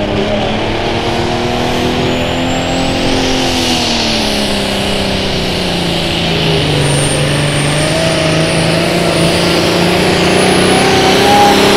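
Farmall Limited Pro Stock pulling tractor's turbocharged diesel engine working hard as it pulls the sled. The engine note rises, sags a few seconds in, then climbs and grows louder toward the end, with a high turbo whistle over it.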